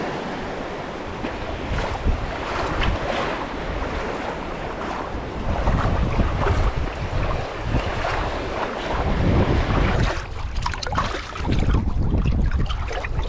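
Surf washing and wind buffeting the microphone, with water sloshing and splashing around the legs of someone wading out into the waves; the wind rumble comes in gusts.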